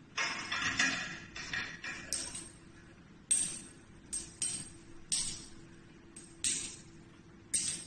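Braided stainless-steel faucet supply hoses clinking and jingling as they are handled and their metal fittings knock about: a string of about ten short, sharp metallic clinks, each dying away quickly.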